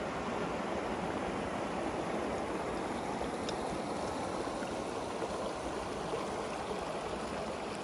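Shallow, clear mountain stream running over rocks: a steady rush and gurgle of water that holds even throughout and cuts off suddenly near the end.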